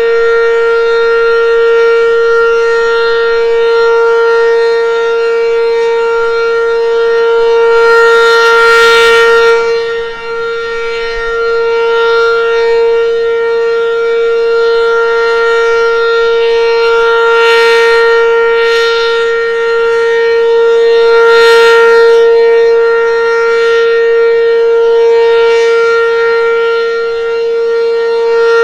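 ACA Banshee eight-port outdoor warning siren sounding its full-alert signal: one loud, steady, high wailing tone. It dips briefly about ten seconds in and swells and brightens several times.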